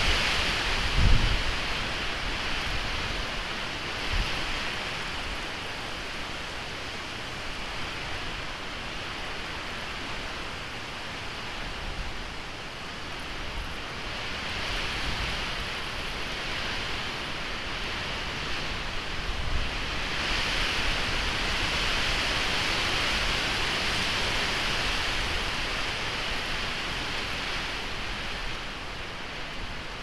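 Strong wind rushing through pine trees, swelling and easing in gusts, with low buffeting thumps on the microphone about a second in and again about four seconds in.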